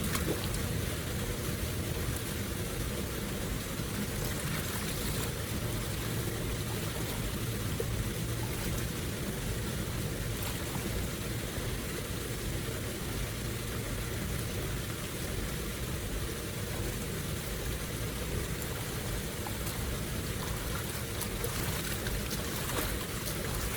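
Steady flowing water, a continuous rushing with no break.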